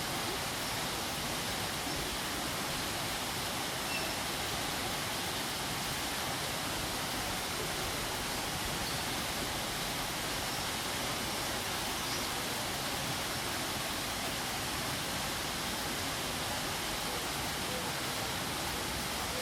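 Waterfall running in a steady, unbroken rush of water noise.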